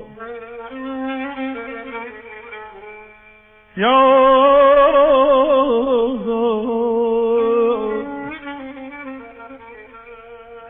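Violin playing a solo answering phrase in Persian classical style: a soft opening passage, then, about four seconds in, a sudden loud, sustained phrase with wide vibrato that falls back to a quieter line near the end.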